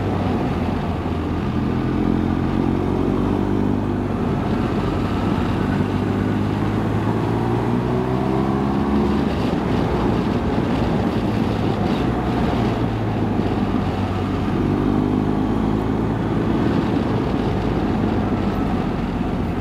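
BMW R 1250 GS Adventure's boxer-twin engine running on the move, its note rising as the bike pulls through the gears and easing off between bends, over steady wind and road noise.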